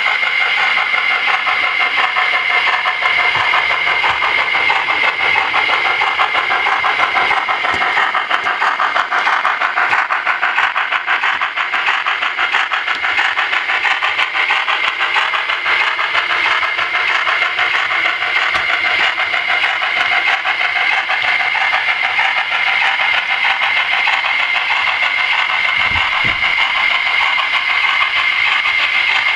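Model train running on the layout: a steady high whine with rapid clicking of wheels over the rail joints. The clicking is densest and loudest around the middle, as the coaches pass close by.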